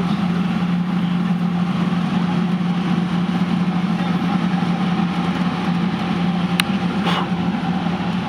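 Diesel passenger train's engine running at idle, a steady low hum. Two sharp clicks about six and a half seconds in, and a brief hiss just after.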